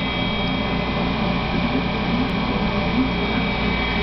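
Tornado-chamber exhibit's fan running steadily, drawing the vapour column up: an even whirring hum with a couple of faint, steady high tones over it.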